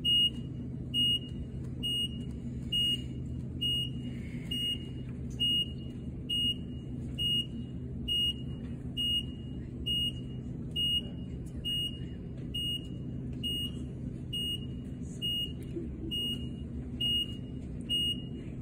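Vehicle lift's warning beeper sounding a short, high, even beep about once a second as the lift lowers a car, over a steady low hum.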